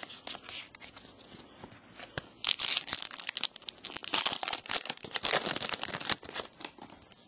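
Foil trading-card pack wrapper being torn open and crinkled by hand: a dense crackle that grows louder about two and a half seconds in and tails off near the end.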